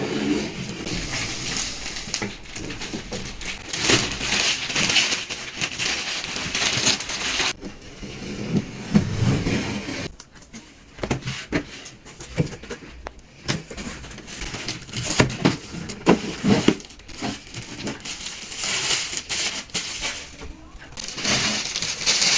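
Cardboard box and plastic packaging being handled and opened: irregular rustling and crinkling with scattered clicks and light knocks.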